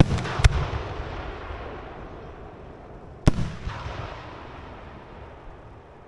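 Firework shells bursting: sharp bangs at the start and about half a second in, then another a little past three seconds, each followed by a rolling echo that fades away.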